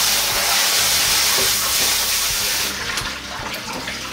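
Pull-down pre-rinse spray faucet running hard onto raw chicken pieces in a plastic tub in a stainless steel sink, shut off suddenly a little under three seconds in. After that come small knocks and clatter as the tub is handled.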